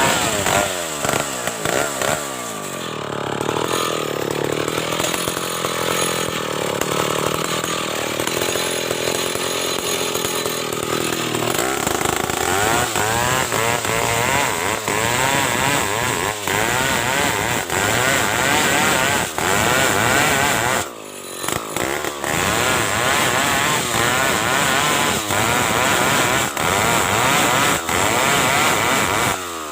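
Stihl chainsaw cutting lengthwise through a large ulin (ironwood) log to make planks, running hard under load. Its engine pitch wavers as the bar bites, and it eases off briefly about two-thirds of the way through before picking up again.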